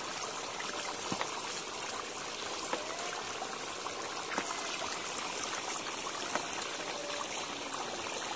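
Large pot of potato and chicken curry bubbling at a simmer over a wood fire: a steady hiss dotted with small pops and crackles.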